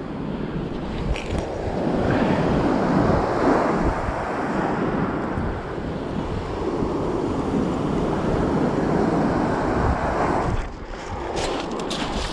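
Strong wind buffeting the microphone over waves breaking on a shingle beach, swelling and easing. A few sharp clicks sound near the end.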